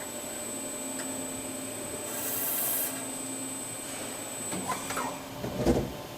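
Machine-shop noise: a steady high whine with a brief hiss of air a couple of seconds in, then clattering and a short heavy thud near the end.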